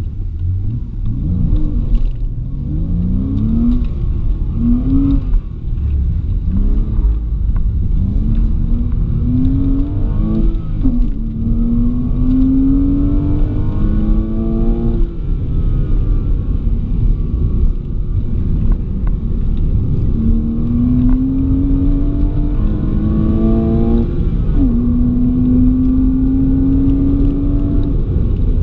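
Porsche Boxster's flat-six heard from inside the cabin under hard acceleration: the engine note climbs through the revs and drops back at each upshift, several quick shifts in the first few seconds, then longer pulls. It eases off around the middle, then pulls up through the gears again and holds a high steady note near the end, over constant road and wind rumble.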